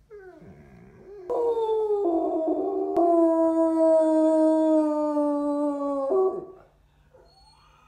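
Basset hound howling. A few short whining glides grow into a loud, drawn-out howl, held at one pitch and sinking slightly for about three seconds, then breaking off about six seconds in.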